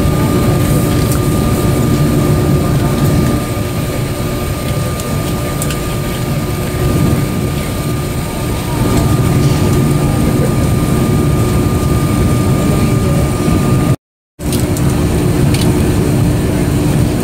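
Steady cabin hum inside a parked Airbus A330-200 airliner: a low drone with a few constant tones over it. The sound cuts out completely for a moment about fourteen seconds in.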